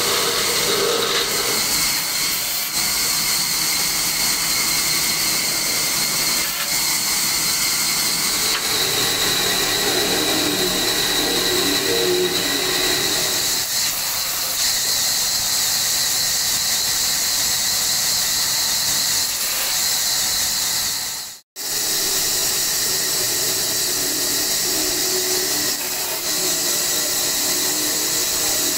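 Woodshop bandsaw running with a steady high-pitched whine and hiss while wooden strips are fed through it. The sound cuts out for an instant about two-thirds of the way in.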